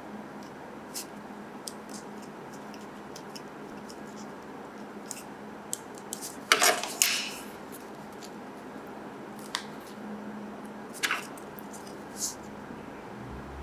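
Light plastic clicks and crinkles from hands handling a Mini 4WD's plastic body shell and a sticker sheet, with a louder crinkling rustle about six and a half seconds in and another short one near the end.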